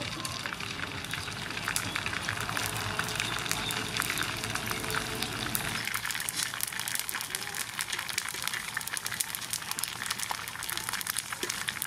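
Dried pork skin deep-frying in hot oil in a wok: dense, steady crackling and sizzling as the skin puffs up crisp, with a low rumble under it that stops about halfway.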